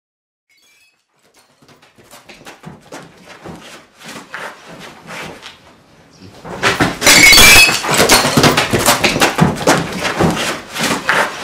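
A busy run of irregular knocks and thuds that starts faint, grows much louder about two-thirds of the way in, and is loudest around seven seconds in.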